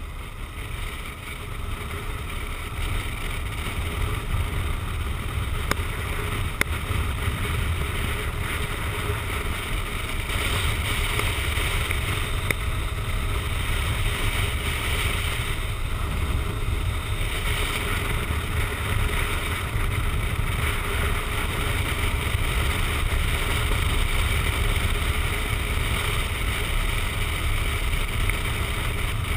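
Wind rushing over the microphone of a camera mounted on a motorcycle riding at road speed, a steady rumble with the bike's engine and tyre noise underneath. It builds over the first few seconds as the bike gathers speed, then holds steady.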